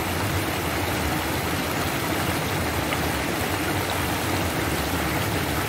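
Water gushing steadily into a concrete fish pond from its inlets, a constant rushing splash with no change in level.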